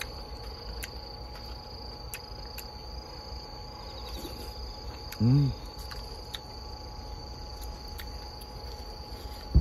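Crickets chirring steadily in the background with a continuous high trill, a few faint light clicks scattered through, and a man's short low hum about five seconds in.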